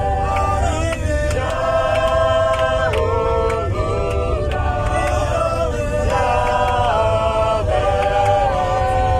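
Choir singing in harmony, the voices holding long notes that change together about once a second, over a steady low rumble.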